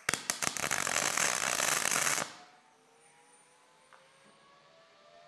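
MIG welding arc on rusty, twice-painted steel pipe: a few stuttering cracks as the arc strikes, then a steady crackling sizzle for about two seconds that cuts off suddenly. A faint rising whine follows.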